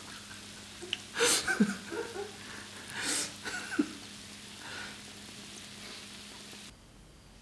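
Churro dough frying in a pot of hot oil, a steady sizzle broken by a few louder, sharp bursts about a second and about three seconds in. The sound drops away abruptly near the end.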